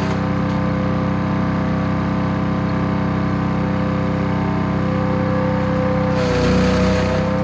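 Small petrol engine of a 3-inch Efcut wood chipper running steadily at speed. About six seconds in, a burst of chipping noise lasts about a second as material goes through, and the engine dips slightly under the load.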